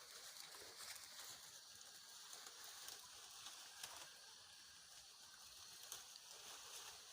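Near silence: faint outdoor background hiss with a few light ticks.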